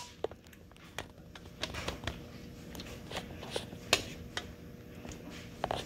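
A metal spoon scraping and tapping in a large mixing bowl and against a glass cup while thick fruit yogurt is spooned out: a scatter of small, irregular clicks and scrapes.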